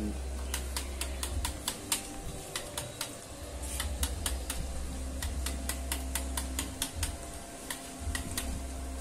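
Quick, irregular clicking, several clicks a second, over a low rumble that comes and goes.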